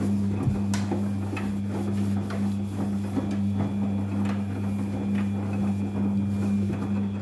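Daewoo DWD-FT1013 washing machine running early in a Cotton 40°C wash: a steady low electrical hum with irregular light clicks and knocks on top.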